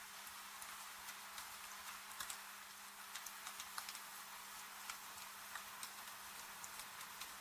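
Wood fire crackling with irregular small pops and snaps over a steady hiss of rain, with a faint steady hum underneath.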